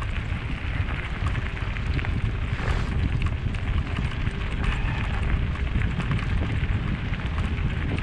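Wind buffeting the microphone of a camera on a moving mountain bike, over a steady crunching and crackling of tyres rolling across a gravel dirt road.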